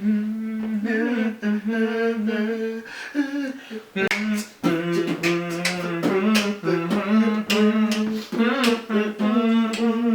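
A man humming a wordless tune in held, steady notes. From about four seconds in, sharp clicks join it in rhythm.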